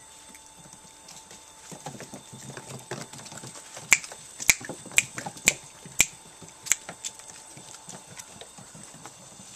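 Italian Greyhound puppies scuffling and mouthing each other on a rug, with a run of six sharp clicks about two a second in the middle.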